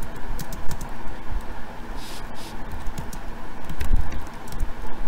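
Computer keyboard typing: quick, irregular key clicks over a steady low background hum.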